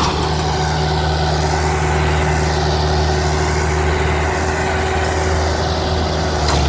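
Indo Farm 3055 tractor's diesel engine running at a steady speed, its low drone holding an even pitch.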